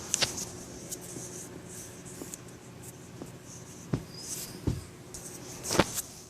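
Sleeping Chihuahua's noisy breathing: a few short snorts and snuffles several seconds apart, the loudest near the end, with faint scratchy rustling between them.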